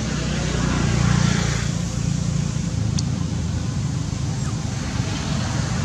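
Steady low rumble of passing road traffic, swelling about a second in.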